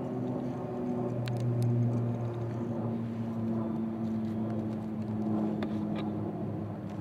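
An engine idling steadily: a low, even hum whose pitch drifts slightly up and down. A few faint clicks are heard over it.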